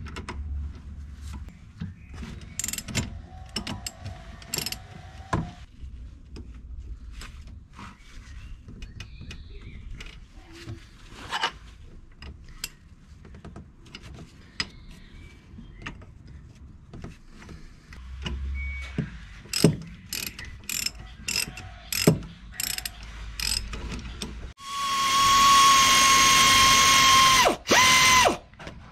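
Hand socket ratchet clicking, with metal tool clinks, as the rear brake caliper bolts of a VW Golf IV are loosened, a 15 mm open-end spanner holding the nut. Near the end a compressed-air ratchet runs with a steady whine and hiss for about three seconds, stops, and gives one short second burst as it spins the bolt out.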